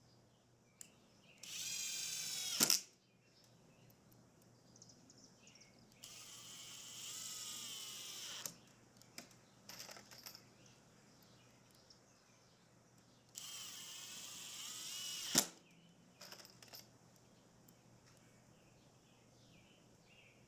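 Power drill running in three bursts of one to two and a half seconds, each ending in a sharp crack as it drives a fastener home. Faint knocks and clicks of handling come between the bursts.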